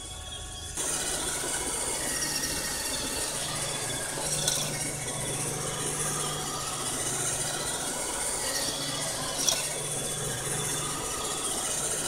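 iRobot Roomba robot vacuum running, a steady motor hum with brush and suction noise starting about a second in. Two sharp clacks come about four and a half and nine and a half seconds in, the second one louder.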